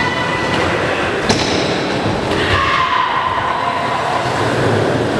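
BMX bike tires rolling and squealing on indoor skatepark ramps, with a sharp knock about a second in.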